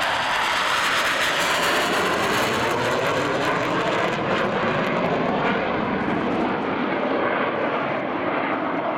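Two F/A-18 Hornet fighter jets climbing away overhead, their twin General Electric F404 turbofans making loud, steady jet noise with the lead jet in afterburner. The sound grows duller from about four seconds in as the jets fly away.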